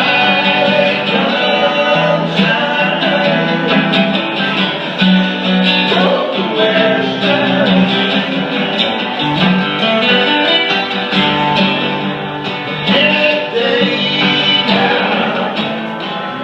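Guitar-led music playing steadily, with sustained bass notes under the melody.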